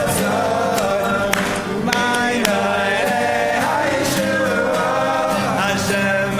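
A group of voices singing a melody together, accompanied by a strummed acoustic guitar.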